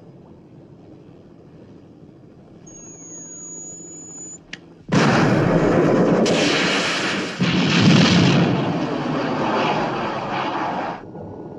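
Film sound effects: a low underwater rumble with a thin high tone, then about five seconds in a sudden loud rush of a missile launching from the water, running into a helicopter's explosion and blast that stops abruptly near the end.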